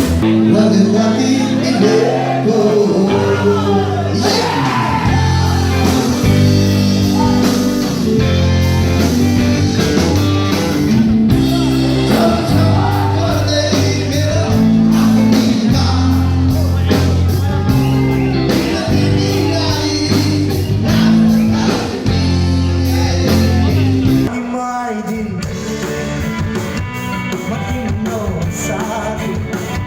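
A live rock band with a singer playing a Nepali folk song on guitars, bass and drums. About 24 s in it cuts abruptly to a different, quieter song.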